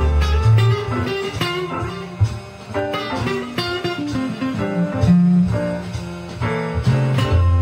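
Fender Stratocaster electric guitar playing a bluesy run of single notes over a backing track with a steady bass line.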